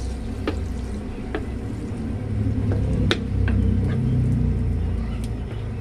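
Butter melting and sizzling in a stainless-steel pan while a wooden spatula stirs it, with scattered sharp pops and taps over a steady low rumble.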